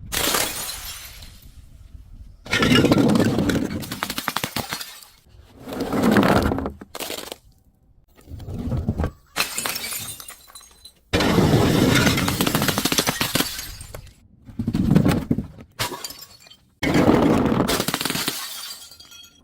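Glass bottles being crushed and breaking, in about eight sudden bursts of crunching and shattering with short pauses between them.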